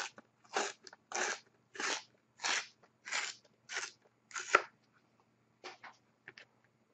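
Panini Zenith Dare to Tear trading cards being torn apart by hand, in about eight short rips a little over half a second apart, the last one the loudest. A few faint clicks follow.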